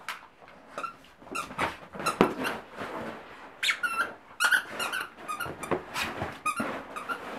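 Squeaker in a plush dog toy squeaking over and over as a dog chews it: a quick, irregular string of short high squeaks, one of them longer a little under four seconds in.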